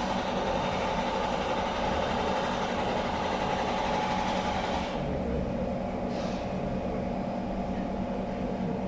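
Kawasaki C151 MRT train standing at a platform with its doors open, its onboard equipment giving a steady hum. A higher hiss over the hum drops away about five seconds in.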